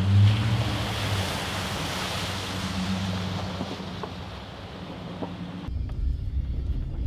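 Lifted Chevrolet Silverado pickup fording a shallow creek: a steady low engine hum under water splashing around the tyres, loudest just after the start and easing off as the truck moves away. Near the end it changes abruptly to the low engine and road rumble inside the cab.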